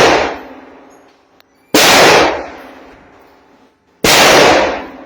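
Rifle shots from a 16-inch AR-15 chambered in .300 Blackout firing 147-grain FMJ: two loud shots a little over two seconds apart, each echoing away over about a second, after the tail of a shot fired just before.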